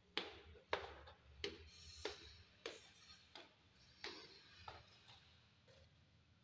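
Footsteps in hard-soled shoes going down stairs and across a bare floor, about one and a half steps a second. Each step is a sharp click that echoes briefly in the empty room, and the steps grow fainter near the end.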